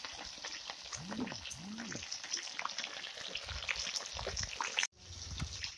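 Batter-coated fish deep-frying in hot oil in an iron kadhai: a steady sizzle full of dense crackling pops.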